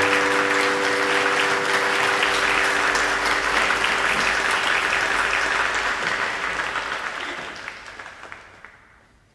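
Live audience applauding, the applause dying away over the last three seconds.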